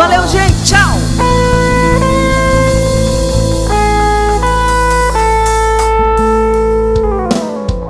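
Live band music led by a guitar playing long held notes, with a quick bend about a second in, over a steady low bass; near the end the notes slide down and stop.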